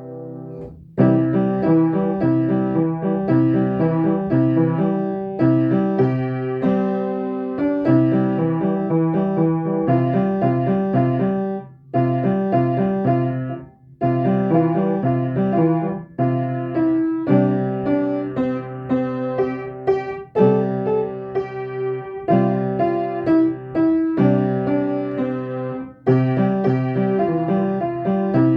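Piano playing. A held chord dies away, then a new passage of chords starts about a second in and carries on with brief pauses between phrases.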